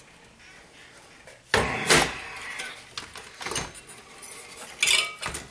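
Sheet-metal shield of an Xbox 360 chassis being lifted off and handled, clattering. There is a loud metal clatter about one and a half seconds in, a lighter knock later, and another clank with a brief ring near the end.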